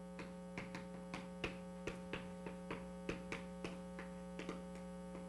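Chalk tapping and scraping on a chalkboard in short strokes, a few per second, while writing. A steady electrical hum runs underneath.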